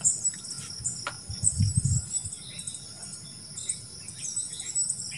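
Crickets chirring steadily in a high band, with short bird chirps scattered over it and a brief low rumble near two seconds in.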